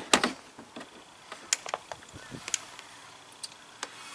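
A screwdriver tapping a no-drill mud guard and its plastic fastener into place. One sharp tap at the start, then a few light, scattered clicks and taps.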